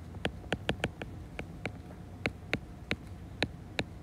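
Stylus tip tapping and clicking on an iPad's glass screen during handwriting: a series of sharp, uneven clicks, about three or four a second.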